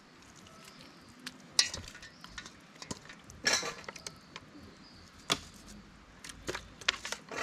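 A knife cutting pieces of cooked meat by hand over a stainless steel bowl: a handful of separate clinks and taps as the blade and meat hit the bowl. The loudest comes about a second and a half in, with a short scraping rustle near the middle.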